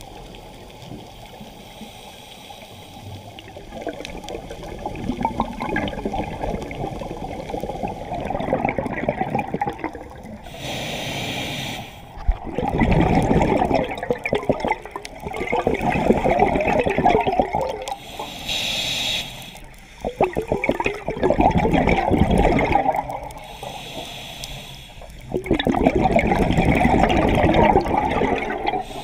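Scuba diver breathing on a regulator, heard underwater: a short hiss on the inhale, then long bursts of bubbling exhaust on the exhale, repeating every few seconds.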